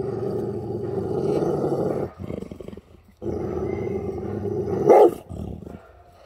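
Adult Cane Corso growling in two long rumbling stretches, breaking off about two seconds in and resuming about three seconds in, with one sharp loud outburst near five seconds. This is a racket of warning and disciplining puppies with mouth bites that make no real contact.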